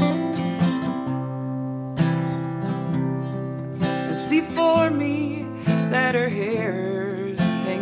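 Acoustic guitar strumming chords, joined from about four seconds in by a wavering melody line with vibrato.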